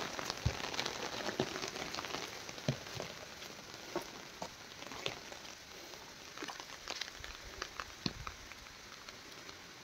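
Heavy rain falling: a steady hiss that fades over the first few seconds, with scattered sharp drop-like ticks throughout.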